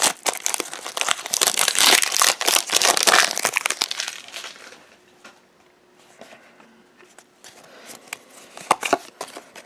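Foil Pokémon booster pack wrapper crinkling and tearing as it is ripped open, for about four seconds. Then it drops to soft flicks and rustles of the cards being slid through by hand.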